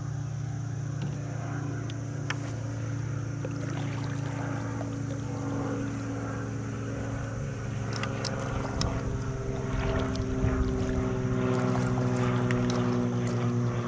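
A kayak's trolling motor humming steadily as the kayak moves across the water, its pitch dropping slightly in the last few seconds as it eases up alongside another kayak. Light clicks and water noise over the hum in the second half.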